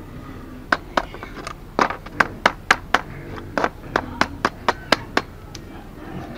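A steel machete blade striking an upturned woven bamboo basket: about fifteen sharp, unevenly spaced knocks over some four seconds.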